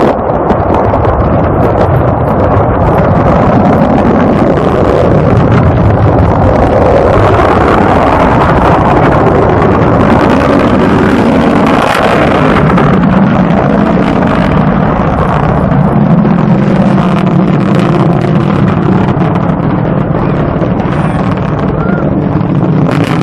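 Antares rocket's first stage, two AJ26 kerosene-oxygen engines, heard from a distance during ascent: a loud, steady roar with crackling.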